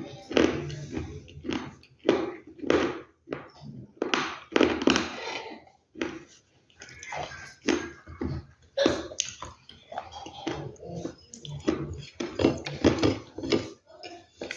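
Earth being crunched: a run of irregular crunches, roughly one or two a second, with a short pause partway through.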